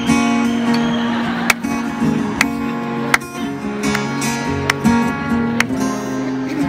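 Acoustic guitar strummed live, playing the opening of a song, with held chords and about five sharp percussive hits.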